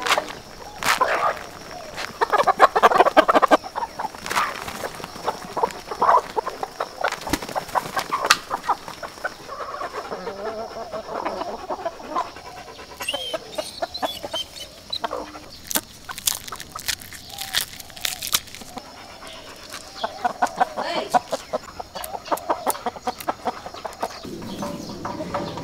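A flock of chickens clucking in a pen, with many sharp clicks scattered through.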